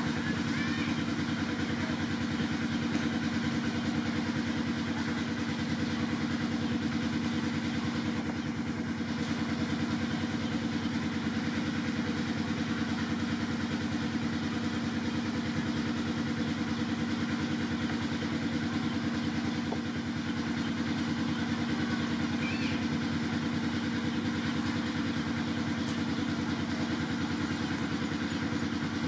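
A small engine idling steadily, a low hum with a fast even pulse that never changes in speed or loudness.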